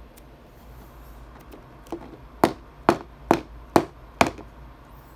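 Rigid plastic top loader with a sleeved trading card inside, tapped on the table five times at about two taps a second to work the card down into the holder. Before the taps there are a few faint clicks of handling.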